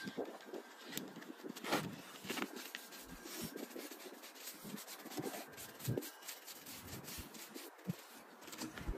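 Faint, irregular strokes of a brush spreading tire mounting paste around the bead of a truck tire, bristles rubbing and scraping on the rubber.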